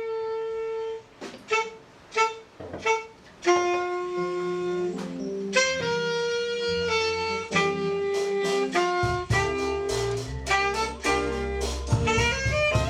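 A church band plays the instrumental opening of a hymn, led by a wind instrument in held notes and short phrases. A fuller, lower accompaniment comes in about nine seconds in.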